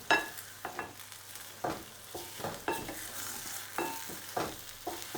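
Omelette sizzling faintly in a frying pan while a spatula knocks and scrapes against the pan every half second to a second, working it loose to flip. Several knocks ring briefly, the loudest just after the start.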